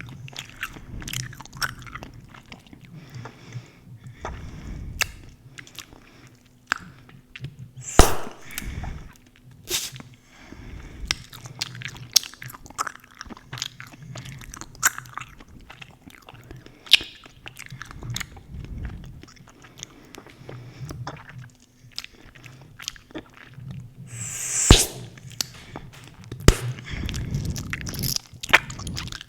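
Close-miked gum chewing: a steady run of small wet clicks and smacks from the mouth. Two much louder sharp pops stand out, about eight seconds in and again late on.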